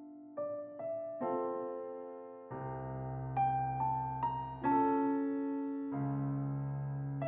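Background music: a slow piano piece, its notes and chords struck one after another and left to ring.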